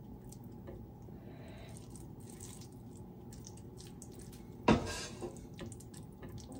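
Soft, wet squishing of rice being mixed into beef trotter curry by hand on a plate. A single sudden loud sound breaks in about two-thirds of the way through.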